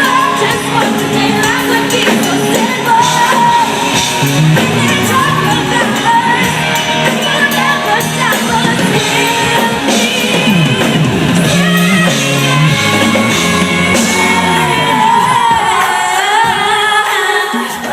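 Live pop song: a woman singing lead over a band, echoing in a large hall, with some shouts from the crowd.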